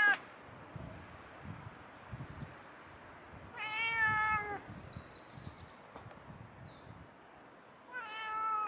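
Domestic tabby cat meowing: a long meow about halfway through and another starting near the end, with the tail of an earlier one at the very start. Small birds chirp faintly between the meows.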